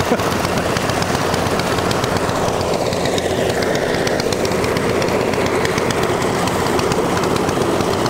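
Engine-driven portable rice thresher running steadily while stalks are fed in, a dense mechanical rattle with a fast run of small ticks over a low steady hum.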